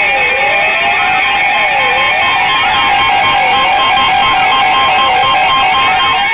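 Several NOAA Weather Radio alert receivers sounding their alarms together for a new warning. A mix of steady tones and a beeping tone, with a siren-like tone sweeping down and back up about every second and a half.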